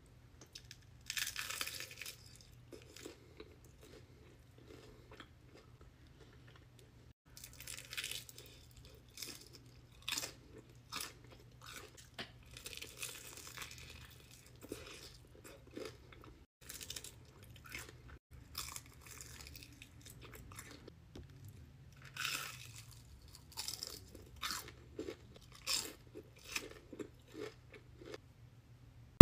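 Irregular crunching bites and chewing of crispy, sauced Korean fried chicken, crackling bursts with quieter chewing in between.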